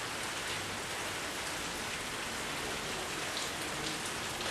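Steady hiss like rain falling, with faint scattered ticks.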